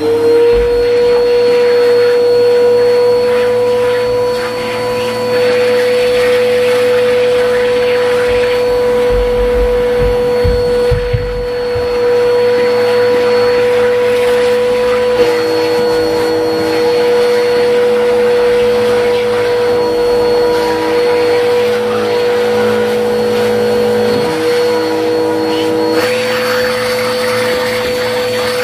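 Vacuum cleaner running steadily as its hose nozzle sucks over pool table felt: a steady motor whine with a rush of air. The pitch of the whine steps slightly about halfway through and again near the end.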